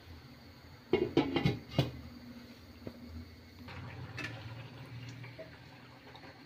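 Glass lid set down on a kadhai: a quick run of clinks and knocks about a second in, then a few fainter clinks a couple of seconds later as the lid is handled again, over a low steady hum.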